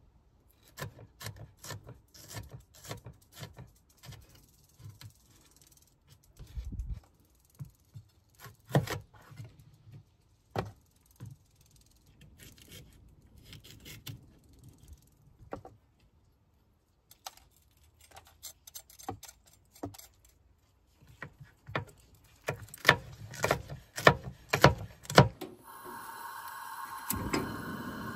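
Chef's knife chopping bell peppers on a wooden cutting board: irregular knocks of the blade on the wood, with a short pause in the middle and faster, louder chopping near the end. About two seconds before the end, a camp stove burner starts a steady gas hiss.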